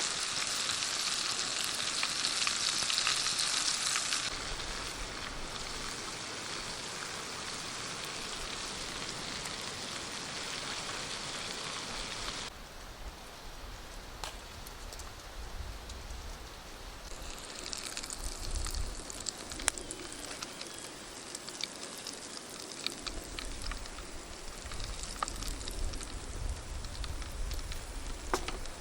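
Hot oil sizzling as chicken karaage deep-fries in an aluminium mess tin, with scattered pops and crackles. The sizzle is loudest for the first few seconds, then drops and changes abruptly a couple of times.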